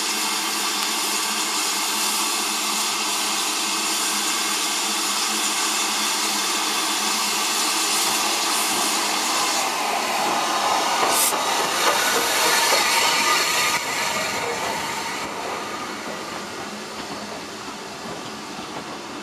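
Steady hiss of steam from a standing BR Standard Class 9F locomotive. About ten seconds in, the Southern Railway Schools class 4-4-0 'Cheltenham' runs past close by, loudest for a few seconds with one sharp clank. Its coaches then roll past and the sound fades away.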